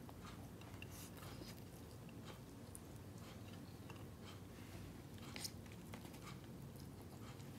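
A person eating by hand: faint chewing with soft scattered mouth clicks, and one slightly louder click about five seconds in.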